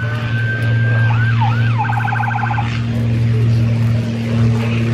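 A steady, loud, low engine drone from an aircraft piston engine running. Over it, in the first seconds, a long high whistle rises slowly, then come a few quick falling swoops and a short rapid warbling trill.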